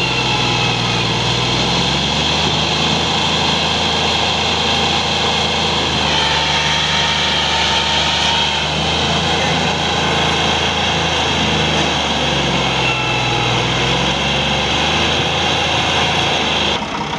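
Massey Ferguson 260's three-cylinder diesel engine working hard under heavy load as it strains to pull a loaded sugarcane trolley whose wheels are sunk in soft, wet ground. The engine note dips and rises a few times.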